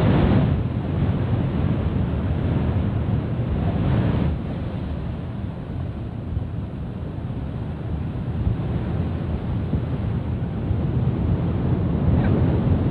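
Steady rushing noise of floodwater, with wind buffeting the microphone.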